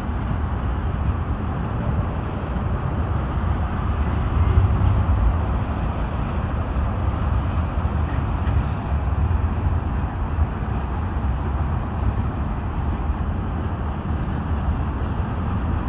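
Freight train of tank cars rolling past on a bridge: a steady low rumble of wheels on rails with no break.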